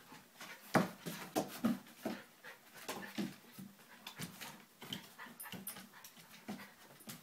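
An Alaskan Malamute and a Jack Russell terrier puppy play-fighting: a quick, irregular string of short whines and play noises, mixed with scuffling and clicks on the wooden floor.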